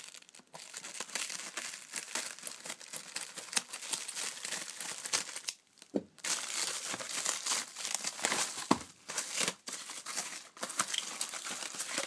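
Plastic wrapping on a trading-card box and packs crinkling and tearing as it is pulled apart by hand. The crackling goes on and on, with short pauses about halfway through and again a few seconds later.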